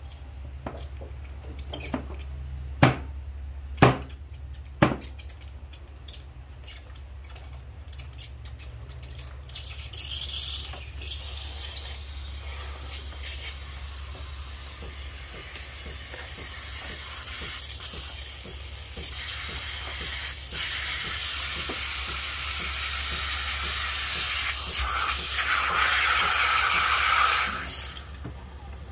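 Three sharp knocks in the first few seconds, then the steam wand of a Breville Barista Express espresso machine hissing as it purges over the drip tray, growing louder for some fifteen seconds and cutting off suddenly near the end. A low steady hum runs underneath.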